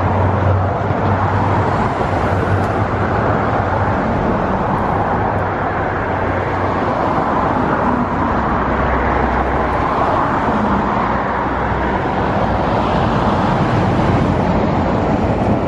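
Steady road traffic noise, an even rush of passing vehicles with a low engine hum underneath.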